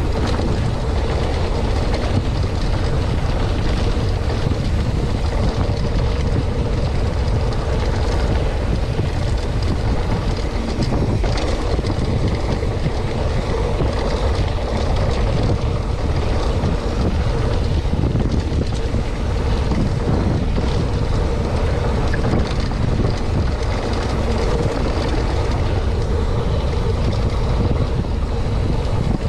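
Steady rush of wind buffeting the camera microphone on a mountain bike descent, with the tyres rolling over sandstone and packed dirt.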